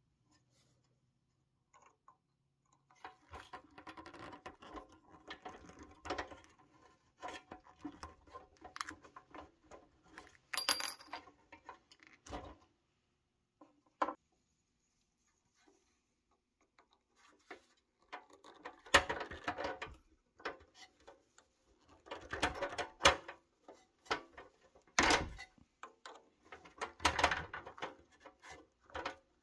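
A vintage pressed-steel Tonka toy truck's wheels being handled and turned on their rusty axles, giving rattles and sharp metallic clicks in two stretches of irregular bursts. In the second stretch a metal pick scrapes and clicks at a wheel's rusted hub cap.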